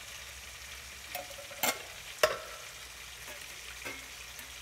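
A steady sizzle of vegetables frying in oil. Over it come a few sharp metallic knocks of a tin can against a plastic tub as canned ackee is emptied, the loudest two about a second and a half and two seconds in.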